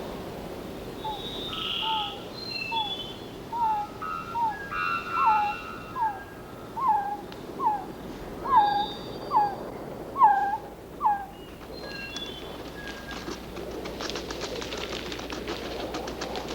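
A bird calling in the rainforest: a series of about a dozen short whistled notes, each sliding downward, getting louder toward the end of the series, with other birds chirping higher behind. A rough hiss rises near the end.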